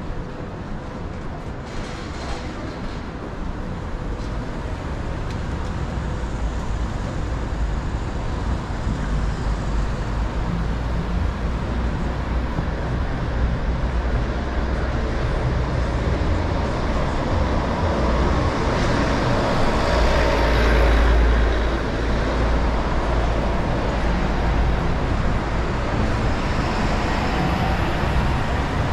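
City street traffic: a steady hum of cars and other vehicles on the road beside the footpath, with one louder vehicle passing about two-thirds of the way through.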